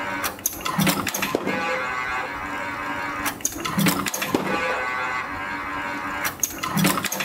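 CNC extension spring machine forming 1.5 mm wire springs with German hooks, running in a cycle that repeats about every three seconds. Each cycle brings a cluster of sharp metallic clacks and a short low hum, with a steady whine between the cycles.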